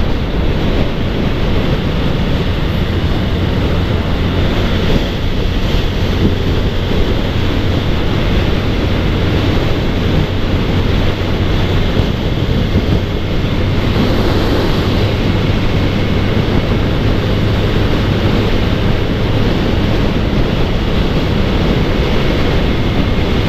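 Wind rushing over the microphone of a motorcycle cruising at steady road speed, with the engine's constant low hum underneath.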